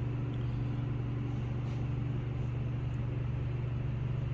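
Steady low machine hum with a faint steady tone above it, and a couple of faint light clicks.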